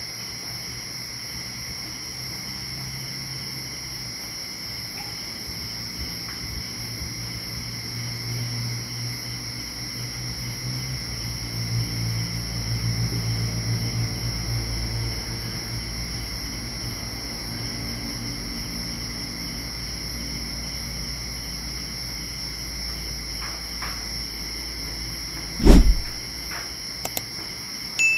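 Night insects, crickets, chirring steadily in several high bands. A low motor hum swells through the middle and fades, and a single loud thump comes near the end.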